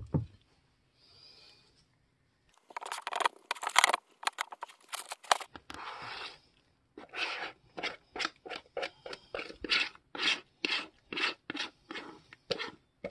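Spatula scraping thick cake batter with apple chunks out of a mixing bowl into a glass baking dish. After a quiet start there are about three seconds of dense scraping, then a run of short, regular scrapes at about two a second.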